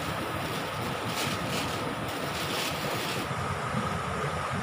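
Steady rush of a rocky stream flowing over boulders, with a thin plastic bag crinkling and rustling in hand a few times until about three seconds in.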